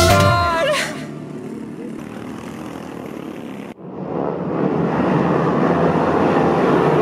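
The engines of off-road racing karts run on a dirt track as a steady, noisy hum. It is faint at first, then much louder after a sudden cut about four seconds in. The last notes of a song die away in the first second.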